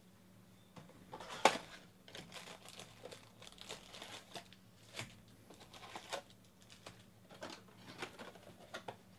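Cardboard hobby box of trading cards being opened and its foil-wrapped card packs pulled out and handled: a sharp snap about a second and a half in, then a run of short crinkles, rustles and taps.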